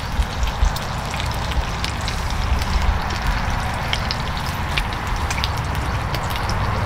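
Thin-sliced pork belly sizzling on a griddle pan: a steady frying hiss with many small crackles and pops.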